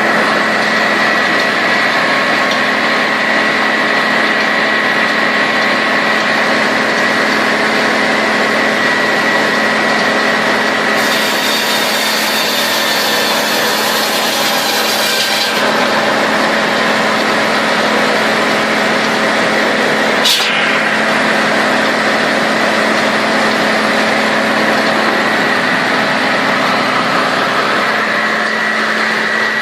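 Chainsaw running steadily at high speed while cutting wood. A stretch of extra hiss runs for about four seconds near the middle, and a single sharp knock comes about two-thirds of the way in.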